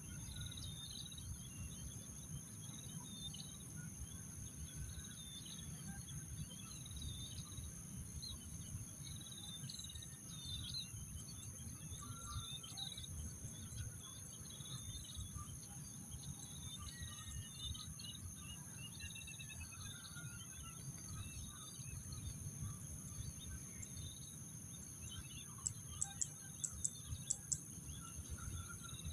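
Rice-field ambience: insects, crickets among them, trilling in two steady high tones, with many short bird chirps over a low rumble. Near the end comes a quick run of about seven sharp clicks.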